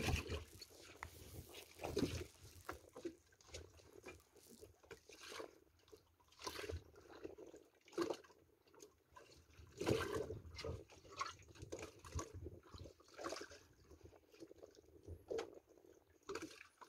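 Water lapping and slapping against the hull of a small open boat in irregular soft splashes.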